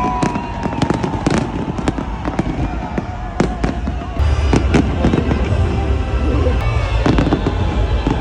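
New Year fireworks display going off in a rapid, irregular string of sharp bangs over a continuous low rumble, which swells about halfway through. Music and voices are heard underneath.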